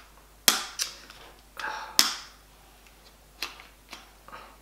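A magnetic phone clamp clacking against the DJI Osmo Mobile 4 gimbal's magnetic mount as it is fitted. There are several sharp clicks, the loudest about half a second and two seconds in. The clamp is not yet seating in the right spot.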